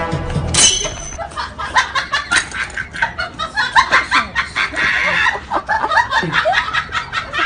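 Water splashing irregularly as large dogs charge and leap about in a shallow pond, with short high-pitched vocal sounds mixed in.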